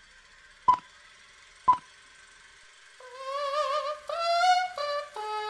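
Two short electronic metronome beeps a second apart, then about three seconds in sopranos' voices come in singing held notes with vibrato, stepping from pitch to pitch.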